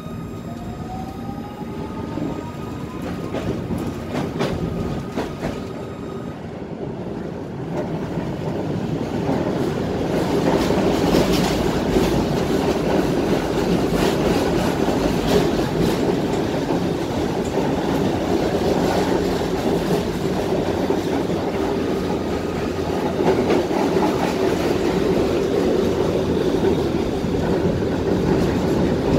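Tatra-Yug K1M8 tram heard from inside the passenger cabin as it pulls away. The traction drive whines, rising in pitch over the first few seconds. Then the wheel-on-rail rumble grows louder as the tram gathers speed, with clicks over rail joints.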